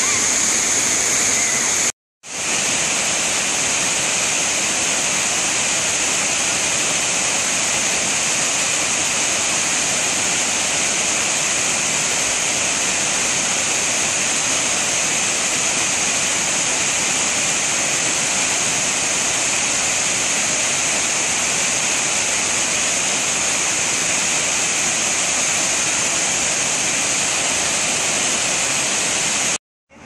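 Small waterfall cascading over rocks: a steady rush of falling water, broken by a brief dropout about two seconds in.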